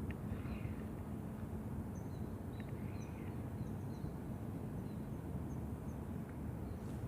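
Outdoor ambience: a steady low rumble with a faint hum, and faint, short, high bird chirps repeating every half second or so.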